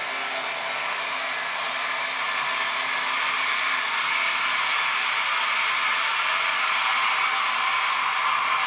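A steady, even rushing whoosh like blowing air, growing a little louder about three seconds in.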